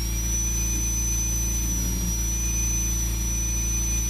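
Steady mechanical drone with a low hum and a thin, slightly wavering high whine above it, unchanged throughout; no clicks or strokes stand out.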